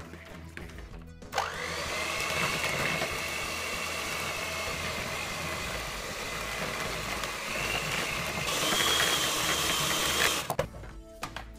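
Tefal electric hand mixer switching on about a second in, its whine rising as the motor spins up, then running steadily as its beaters work flour into cake batter. The whine steps up in pitch near the end and cuts off suddenly shortly before the end.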